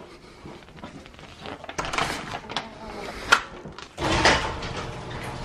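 Rustling and handling of a paper flyer and coupon, with a sharp click a little over three seconds in; at about four seconds a louder low rumbling noise suddenly takes over.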